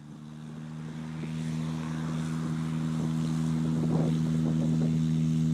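Engine and propeller of a small two-seater microlight aircraft running at a steady pitch, fading in over the first few seconds.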